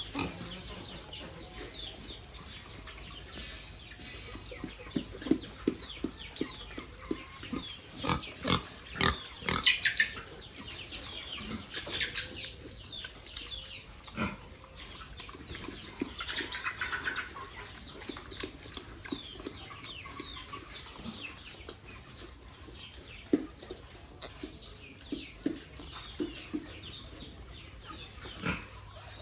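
Pigs feeding, making many short irregular sounds with high-pitched calls now and then. The loudest stretch comes about ten seconds in.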